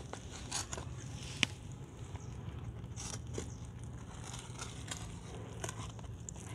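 Kitchen knife cutting through a cheese-topped lamb patty in a large metal tray, with scattered crackles, scrapes and clicks as the blade meets the tray; one sharp click about a second and a half in.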